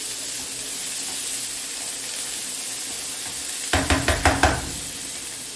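Diced bacon, calabresa sausage, onion and chickpeas sizzling steadily in a frying pan. A little under four seconds in, about five quick knocks as the spatula is tapped against the pan's rim.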